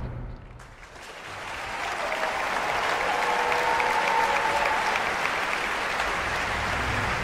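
The music stops and audience applause swells up about a second in, then holds steady.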